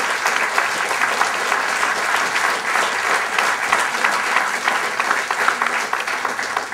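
Audience applauding, many hands clapping steadily, dying away right at the end.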